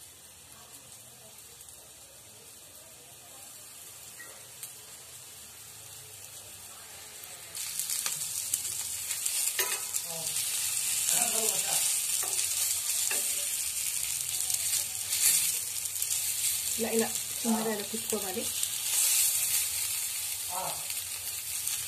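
Masala-coated fish pieces shallow-frying in hot oil on a flat iron tawa: a faint sizzle at first, then a loud, steady sizzle that starts suddenly about seven and a half seconds in as more pieces go into the oil.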